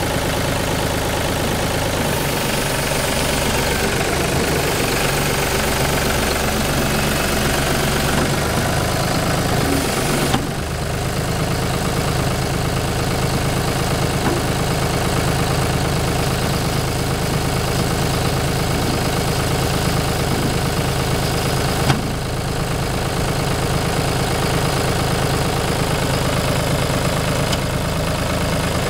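John Deere 5320 tractor's diesel engine running steadily under load, with the hiss of its front rotary sweeper broom scrubbing a gravel road. The sound shifts abruptly twice, about a third and three-quarters of the way through.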